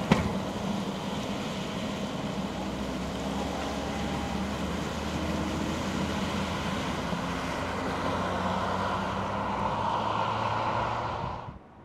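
Mercedes-Benz GLC test prototype driving past, with steady engine and tyre noise and a low engine hum. There is a sharp click at the start, and the sound drops away suddenly near the end.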